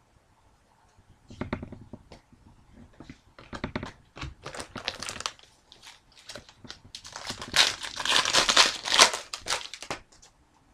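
Foil wrapper of a hockey card pack crinkling and tearing as it is handled and opened, in several rustling bursts, the longest and loudest near the end.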